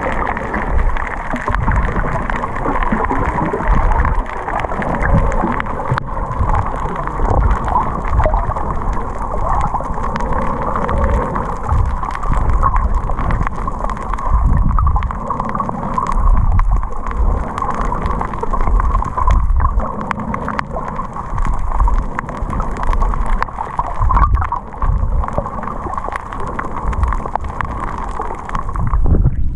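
Muffled underwater noise picked up by a camera submerged in the sea: irregular low rumbles of moving water over a steady hum.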